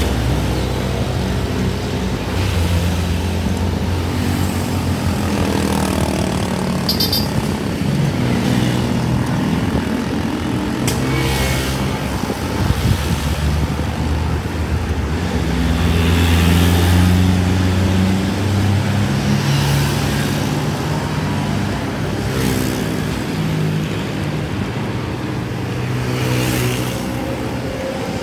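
Road traffic close by: engines of vans and motorcycles running, their hum rising and falling as they pass.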